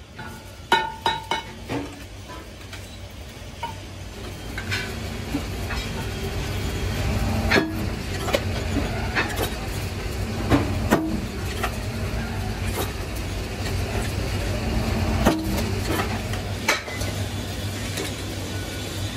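A heavy workshop machine's motor hums steadily, growing louder from about two seconds in. Over it come irregular sharp metal clanks and clinks as a steel truck-wheel center plate is handled and worked on the machine.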